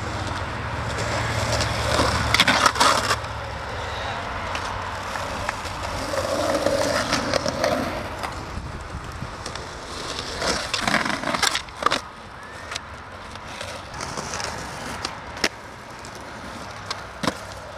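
Skateboard wheels rolling over a concrete drainage channel, with sharp clacks of the board on the concrete about two seconds in, again around eleven seconds, and a few single knocks near the end.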